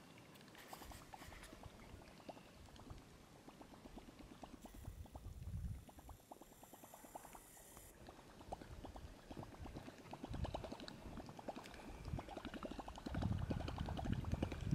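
Small waves lapping and gurgling against the side of a boat, a fine crackle of water sounds, with a few low rumbles of wind on the microphone, the longest near the end.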